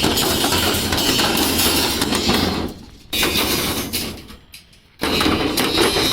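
Metal clinking and knocking of steel reinforcement bars being handled and tied on a slab. It fades out about three seconds in and comes back abruptly near the end.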